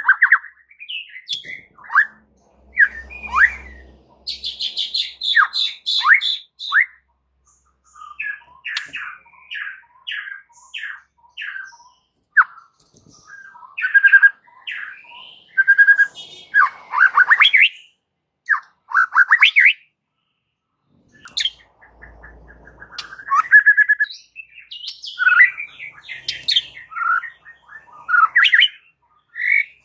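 White-rumped shama (murai batu) in full song (gacor): a long, varied string of loud whistled phrases, quick chirps and harsher buzzy notes, broken by a few short pauses.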